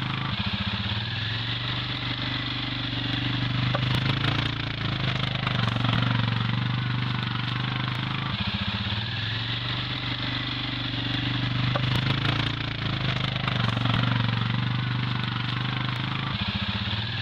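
Quad bike (ATV) engine running steadily, its level swelling a little every few seconds.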